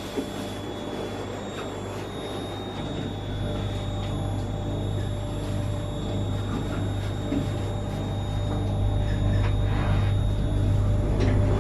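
Steady hum of a stationary Newag 19WE electric multiple unit, heard from inside the carriage, with a low drone and a few thin steady tones; it grows louder over the last few seconds.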